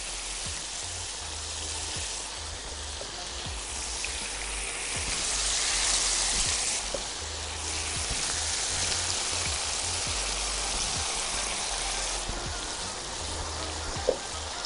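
Thin marinated beef strips searing in a very hot frying pan with a little oil and rendered fat: a steady sizzle that swells about five seconds in, with a short tap near the end.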